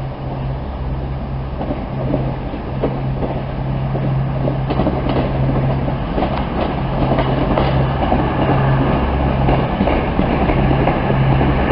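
CrossCountry Voyager diesel-electric multiple unit running past at the platform: a steady low engine hum with rolling wheel noise, growing louder as the train draws near. From about four seconds in come clicks from the wheels on the rails.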